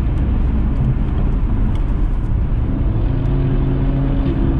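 A car being driven, heard from inside the cabin: steady engine and road rumble, with an even engine hum coming up about halfway through.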